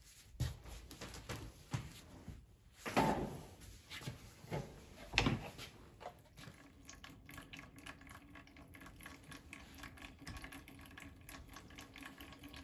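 A few knocks and clunks as the hose is taken off a hydraulic cylinder held in a bench vise and the cylinder is handled. From about halfway, a faint steady trickle as hydraulic oil drains out of the opened cylinder.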